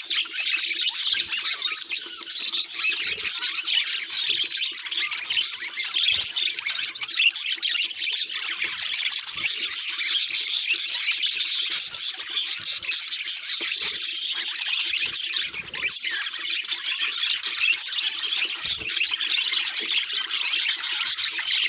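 Budgerigars chattering and warbling without pause, a dense, high-pitched twittering.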